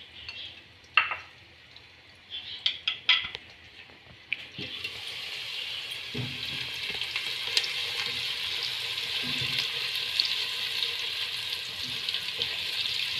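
A few light clicks and taps of utensils against dishes, then sliced onions start sizzling steadily in hot ghee in a pot about four seconds in, with a spatula stirring through them.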